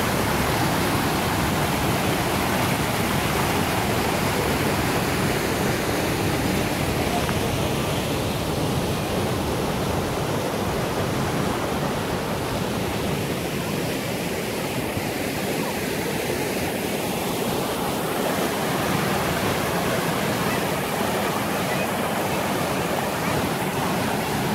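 Small waterfall pouring off a sandstone ledge into a shallow creek: a steady rush of falling water.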